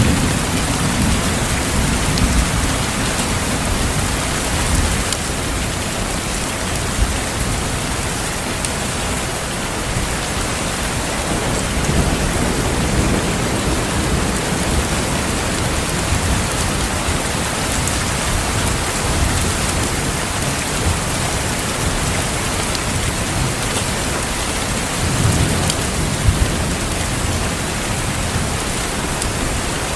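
Steady heavy rain hissing, with low rolls of thunder rumbling at the start, again about twelve seconds in, and once more near the end.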